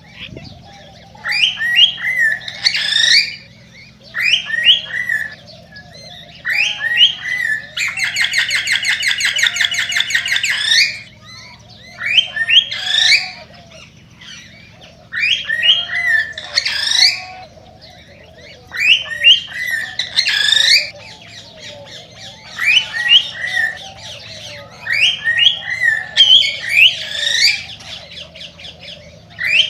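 Male cockatiel singing its excited breeding song: short whistled phrases of rising notes repeated every three to four seconds, with one rapid buzzy trill of about three seconds near the middle.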